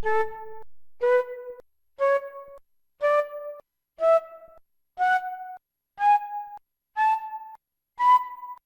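Motorola MS800 phone's key tones: a short pure beep about once a second, each one a step higher in pitch than the last, with a light click at the start of each.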